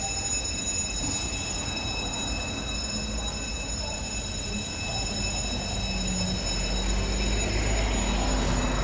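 Heavy fire appliance diesel engine running, a low steady rumble that grows somewhat louder in the second half, with a few thin, steady high-pitched whine tones over it.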